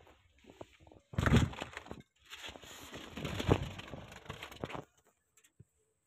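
Crackling and rubbing handling noise from dry grass nesting and a clay nest pot brushing close against the microphone. It comes in two stretches with a few knocks, starting about a second in.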